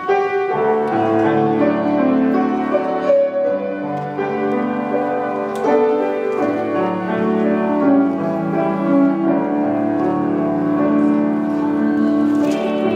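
Piano playing the slow instrumental introduction of a hymn, held chords moving every second or two.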